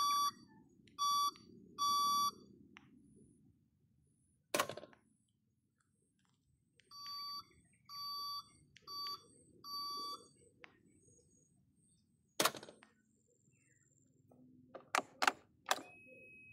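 Short electronic beeps, three in quick succession and then four more a few seconds later, with a few sharp clicks between. A steady high tone begins near the end.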